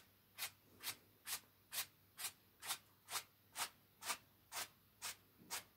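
A paintbrush stroking paint onto a canvas in quick, even strokes, about two a second, each a short rubbing brush sound.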